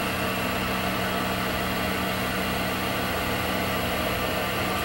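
Wood lathe running at steady speed, its motor giving an even hum with the spindle turning a small cocobolo piece on a faceplate.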